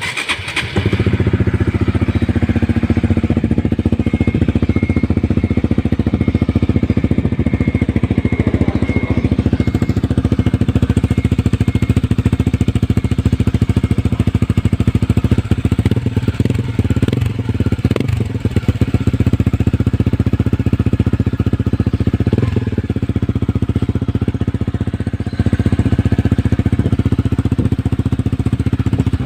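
Honda RS150 motorcycle engine breathing through an Apido power pipe aftermarket exhaust: it starts within the first second and then idles steadily, with a few brief rises in the middle and a step up in level near the end.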